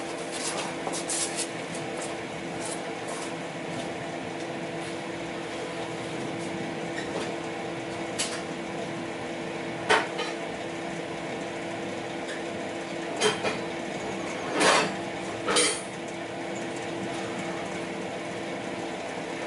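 Occasional sharp metallic clinks and clanks, spread irregularly, as metal hand tools and parts are handled, over a steady low hum.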